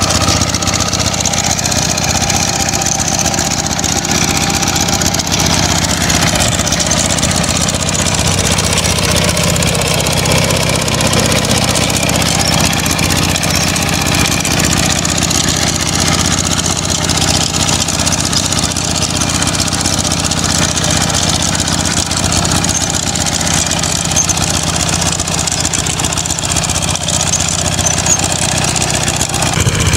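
Kubota K75 two-wheel hand tractor's engine running steadily under load as it drives its rotary tiller through dry soil.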